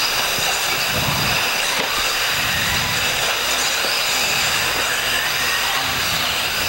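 Several 1/8-scale electric off-road RC buggies racing on a dirt track: a steady high whine from their electric motors over a rushing hiss.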